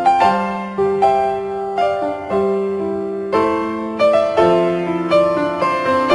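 Background piano music: a gentle melody of struck notes and chords, each fading after it is played, a new one about every half second.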